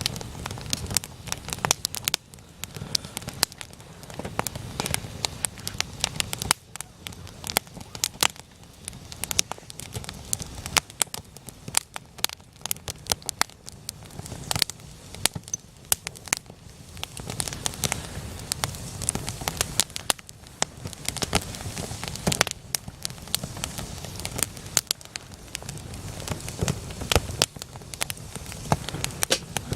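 Wood campfire burning, with frequent irregular sharp pops and crackles over the low rushing of the flames.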